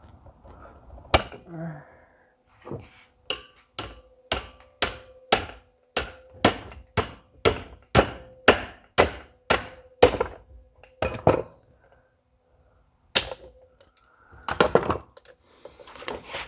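Hammer striking a metal part of a tractor's diesel fuel injection pump: a single blow, then a steady string of sharp blows about two a second for some seven seconds with a faint ringing note under them, then a few more separate knocks. The blows are meant to work loose stuck parts.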